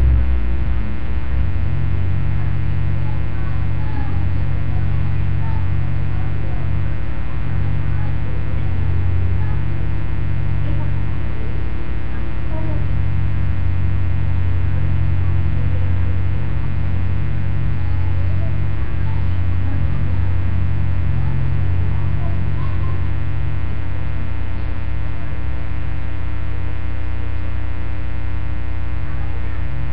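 Loud, steady electrical hum with a buzzy stack of overtones, unchanging throughout.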